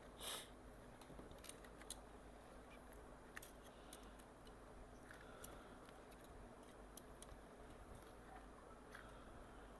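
Near silence broken by scattered faint clicks and taps, with a slightly louder scrape just after the start: small parts and tools being handled as a MacBook Air logic board is fitted into its casing.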